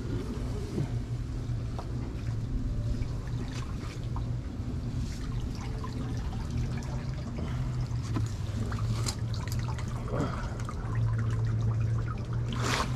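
Water trickling steadily over a steady low hum, with a few faint clicks.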